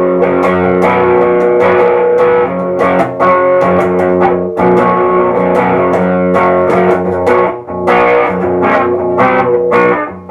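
Electric guitar played through an original Electro-Harmonix Big Muff distortion pedal with the effect switched on: chords struck again and again and left to ring, with mild distortion, showing the pedal is working.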